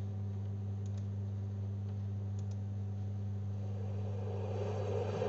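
A steady low hum, with two or three faint clicks, in a pause between chanted lines.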